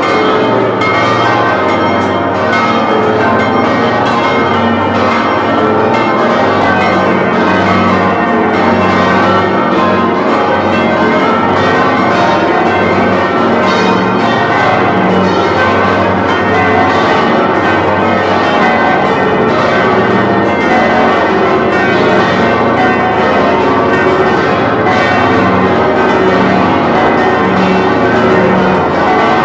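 Church bells pealing, several bells struck in quick overlapping succession and ringing on without a break.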